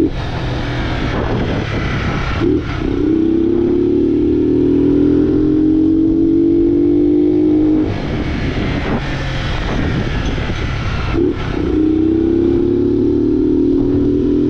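Honda Fan 125 single-cylinder four-stroke engine, run without its air filter and with an opened-up exhaust, accelerating hard. The note climbs steadily within each gear. It breaks off briefly at a gear change about two and a half seconds in, eases off past the middle, then breaks at another shift and climbs again.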